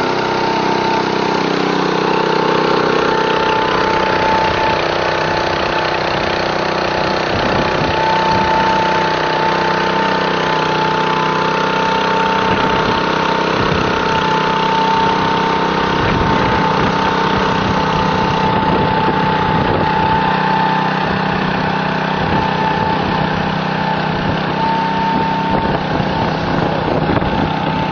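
Small engine on a hot tar sprayer trolley running steadily, with a steady high whine over it.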